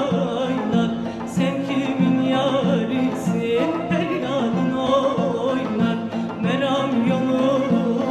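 Turkish folk music (Türk halk müziği) from Konya playing: a melody with wavering vibrato over a steady, repeating low rhythm.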